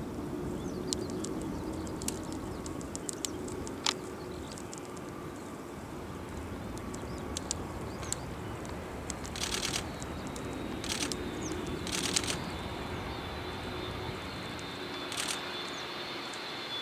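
Boeing 757 jet engines heard faintly from a distance as the airliner comes in to land: a low steady rumble, with a thin high whine coming in about ten seconds in. Scattered sharp clicks and a few short bursts of rustling hiss sit over it.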